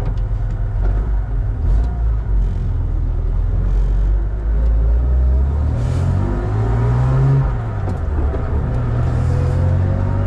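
A BMW 325 Cup race car's straight-six engine running with a steady rumble; about halfway through its pitch rises for a few seconds as it is revved, then drops as the throttle eases.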